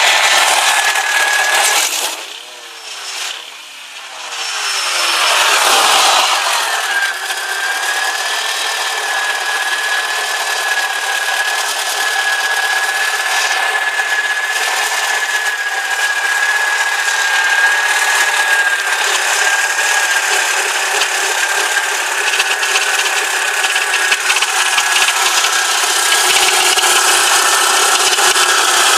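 VW Corrado G60's supercharged four-cylinder engine running with a knocking rattle, which the owner puts down to worn rod bearings. The sound drops and comes back up a few seconds in, then runs on steadily with a high whine over it.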